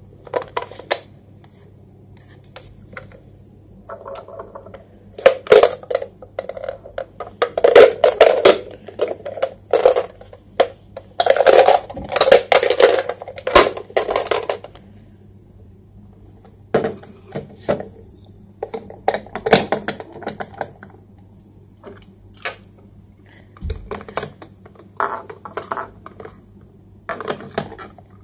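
Hard plastic toy boat pieces being handled and fitted together: irregular clacking, scraping and snapping in bursts with pauses, busiest in the middle. A low steady hum runs underneath.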